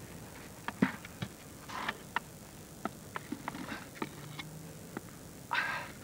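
Scattered knocks and clicks, with short scraping rushes of soil, as a tunnel is dug out from inside a mound of earth and breaks through its face; the longest scrape comes near the end.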